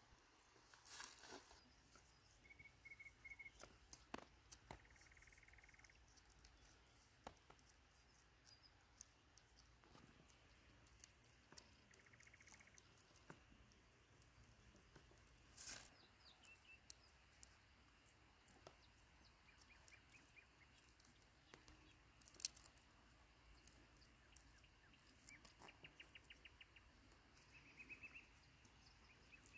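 Faint sounds of hands tying wooden sticks with twine: occasional soft rustles and sharp clicks of wood, the sharpest about two-thirds through. Small birds chirp in short rapid trills now and then in the background.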